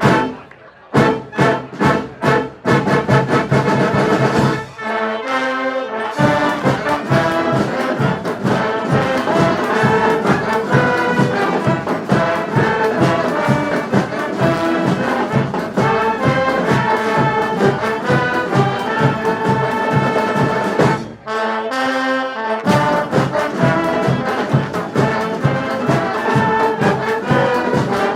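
A brass street band playing: horns holding melody lines over a steady, driving drum beat. It opens with a few separate drum hits, and the drums drop out briefly twice, about five seconds in and again about three-quarters of the way through, while the horns carry on.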